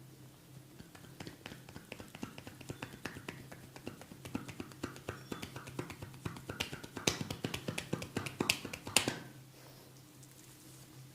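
Rapid, irregular clicking and tapping from a barber's hands working the head and hair during a head massage. It grows denser and louder and stops abruptly about nine seconds in. A faint steady hum runs underneath.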